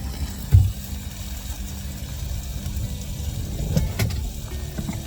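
A motor engine idling with a steady low rumble, with a sharp knock about half a second in and a couple of light clicks near the end.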